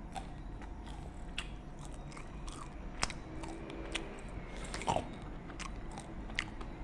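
A person biting into and chewing crispy fried chicken, with scattered crunches of the batter crust, the loudest about 3 and 5 seconds in.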